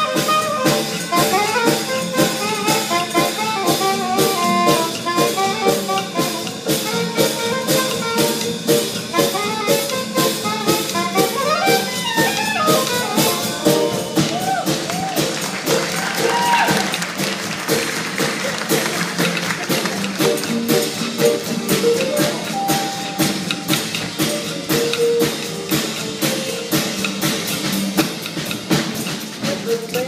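Live jazz band playing, with saxophone and brass melody lines over a drum kit keeping a steady beat.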